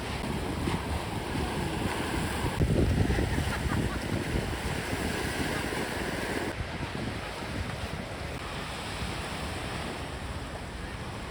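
Sea surf washing on a shore, with wind buffeting the microphone; a steady noise that shifts in tone about six seconds in.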